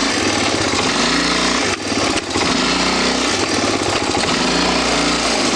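ATV engine running and revving under load while pulling a stuck ATV out of the mud. Its pitch rises and falls, with a brief dip about two seconds in.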